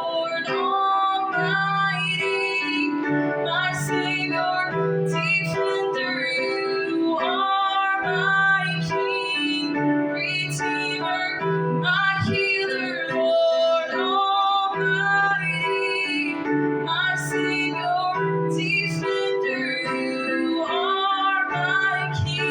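Worship song: a woman singing sustained melodic phrases over piano or keyboard accompaniment.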